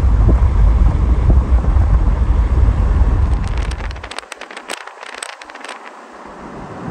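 Wind buffeting the microphone: a heavy low rumble that drops away about four seconds in, leaving a fainter hiss with a scatter of sharp crackles.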